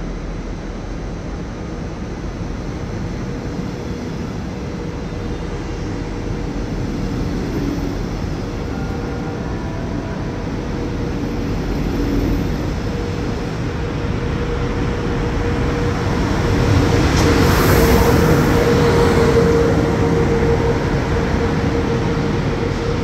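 Electric DB regional train of red double-deck coaches running along a station platform: a continuous rumble of wheels on rail with a steady whine, growing louder about two-thirds of the way through and then easing slightly.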